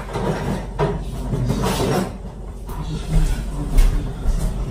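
Kitchen handling sounds: irregular knocks, clatter and rustling, then several heavy low thumps in the last second and a half.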